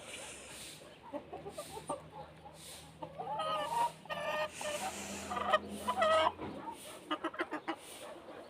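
Desi chickens clucking: several louder calls in the middle, then a quick run of short clucks near the end.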